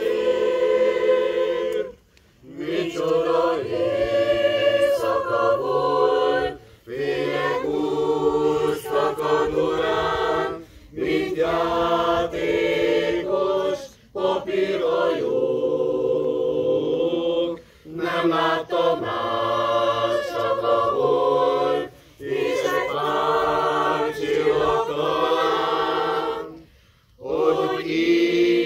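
Mixed choir of men and women singing unaccompanied, in phrases a few seconds long with brief pauses for breath between them.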